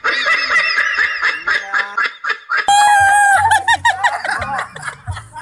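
A group of people shrieking, shouting and laughing together, with one long, loud, high-pitched shriek about three seconds in.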